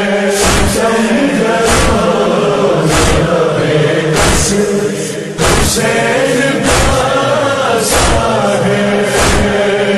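A crowd of male mourners chanting a Muharram noha together, with sharp rhythmic chest-beating (matam) strikes about every 1.2 seconds.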